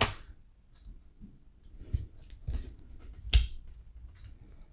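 Parts of a die-cast Matchbox Dodge stake truck clicking and knocking against each other as they are handled: a few sharp clicks, the loudest about three and a half seconds in.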